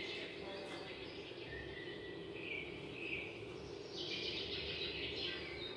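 Forest ambience with birds chirping, played from a nature video through a flat-panel display's built-in speakers. The bird chatter grows busier about four seconds in.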